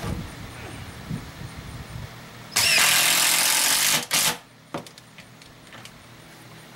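A handheld power tool runs in one steady burst of about a second and a half, starting a little past two and a half seconds in, followed at once by two brief bursts. Light knocks and clicks from handling follow.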